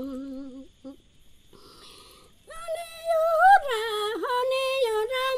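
A woman singing a Shipibo ikaro (healing song) unaccompanied, her voice wavering on each held note. A low held note ends under a second in; after a short pause she comes back on a higher line with quick slides up and down in pitch.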